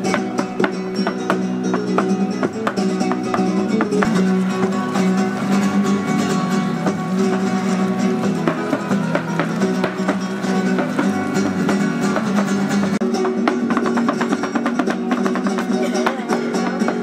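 Flamenco played on an acoustic guitar, a steady run of plucked notes and sharp strummed chords.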